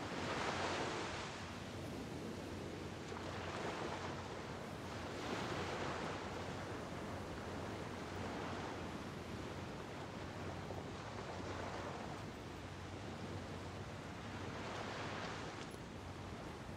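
Small bay waves washing up on the shore, a fresh swell of surf every two to three seconds.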